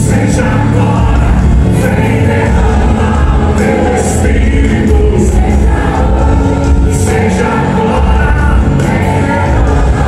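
Loud worship music with singing, played through a large hall's PA speakers.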